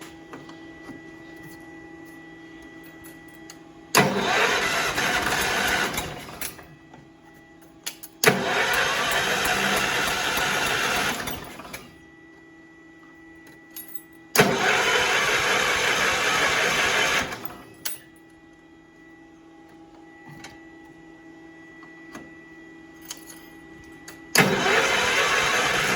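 Kohler engine on an Allis-Chalmers tractor being cranked over by its electric starter in four bursts of two to three seconds each, without catching. It is a hard start on a freshly rebuilt engine. A faint steady hum sits in the pauses between the tries.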